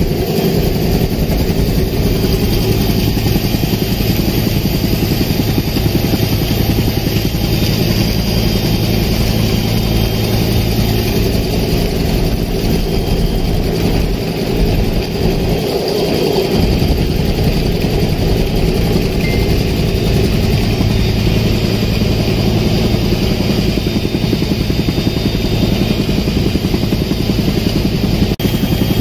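Helicopter engine and rotor noise heard from inside the cabin: a loud, steady drone with a rapid low beat underneath.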